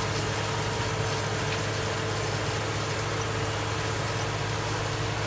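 Tomato harvester and the tractor working beside it running steadily in the field: a constant low engine drone with a steady tone above it, no change in speed.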